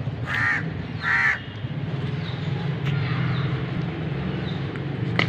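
A crow cawing twice in quick succession, two short harsh calls, over a steady low hum.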